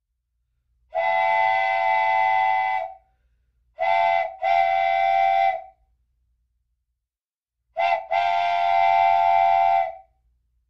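Toy train set's horn sound effect: one long blast of about two seconds, then twice a short toot followed straight away by a longer blast.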